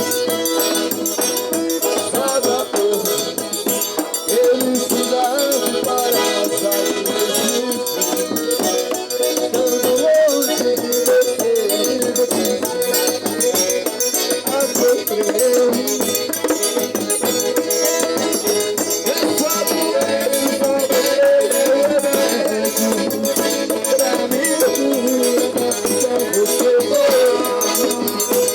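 Live accordion music with a shaker keeping a fast, even beat; the accordion holds sustained notes over the rhythm.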